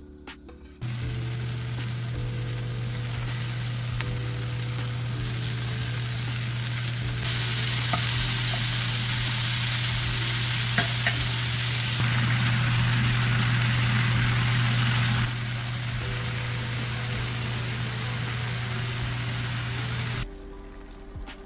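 Diced potatoes, onions and meat sizzling in oil in a frying pan as they are stirred with a wooden spatula, over a low steady hum. The sizzle gets louder in the middle, then drops back and cuts off suddenly near the end.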